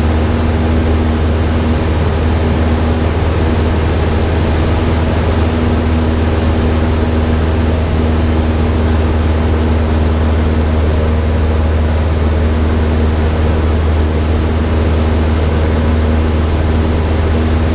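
Cessna 172's piston engine and propeller droning steadily in cruise flight, heard from inside the cabin. Its pitch and level hold constant throughout.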